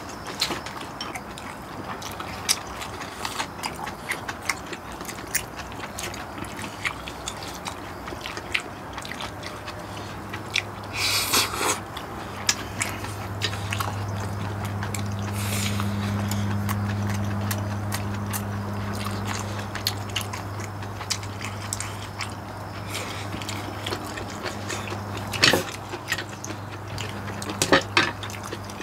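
People eating pork-bone stew and spicy stir-fried noodles: close chewing, a slurp about eleven seconds in, and chopsticks and a spoon clicking against bowls and the pot, the loudest clicks near the end. A steady low hum joins from about ten seconds in.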